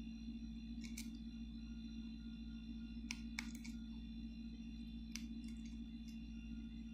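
Steel lineman's pliers working the end of a twisted stranded copper wire pigtail splice, giving a handful of short sharp clicks scattered over a steady low hum.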